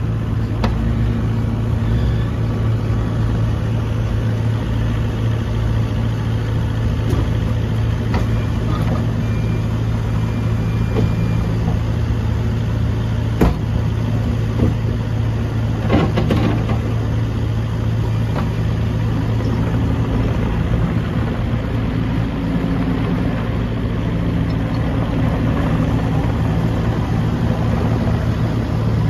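New Holland C327 skid steer's 74 hp FPT diesel engine running steadily at idle, with a couple of brief knocks around the middle.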